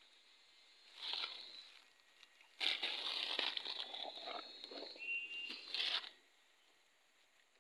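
Tin latex collection cup on a tapped rubber tree being pulled from the bark and handled: a short scrape and crinkle about a second in, then a few seconds of louder scraping and crinkly rustling with a brief high squeak, stopping about six seconds in.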